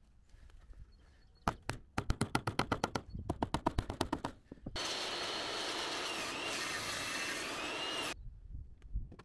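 A quick run of hammer blows, about ten a second, into a wooden frame covered with wire mesh. Then, about five seconds in, a table saw cuts through a timber board: a loud steady noise with a whine that dips twice, cutting off suddenly.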